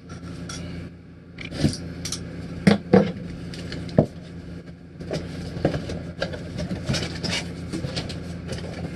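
A cardboard shipping box being opened by hand: its flaps scrape and knock with a string of sharp clicks and thumps, the loudest a few seconds in. A steady low hum runs underneath.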